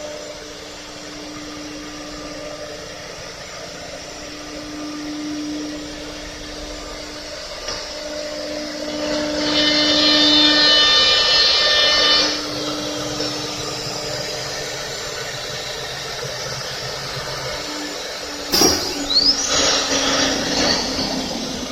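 A multi-head CNC wood router running, with a steady hum throughout. About halfway through, a louder high-pitched whine of cutting lasts a few seconds. Near the end comes a sudden sharp knock, followed by a short rush of noise.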